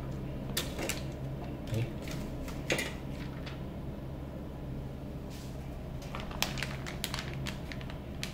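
Scattered light clicks, taps and rustles of small parts being handled while someone searches for screws, over a steady low hum.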